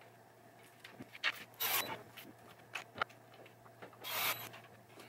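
Hands working with small parts and hand tools on a wooden pinball playfield: scattered light clicks and knocks, with two short rustling scrapes, one about a second and a half in and one about four seconds in. A faint steady hum runs underneath.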